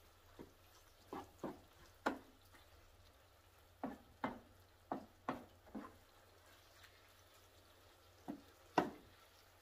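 Wooden spoon knocking and scraping against a frying pan while breaking up and stirring ground beef: a dozen or so irregular clacks, the loudest about two seconds in and near the end.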